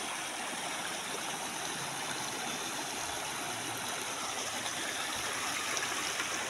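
Shallow rocky stream rushing over and between stones, a steady sound of running water.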